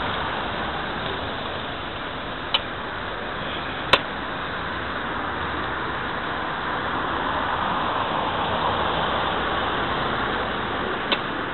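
Road traffic on a town street: a steady hiss of tyres and engines from passing cars, swelling about eight to ten seconds in as a car drives close by. Three short sharp clicks stand out over it.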